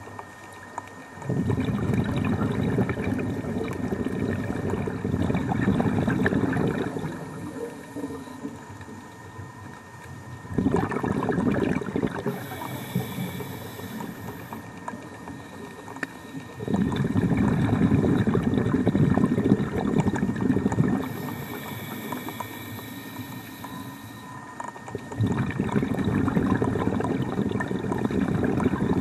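A scuba diver breathing through a regulator: four long gurgling rushes of exhaled bubbles, with a quieter high hiss of inhalation in the gaps between them.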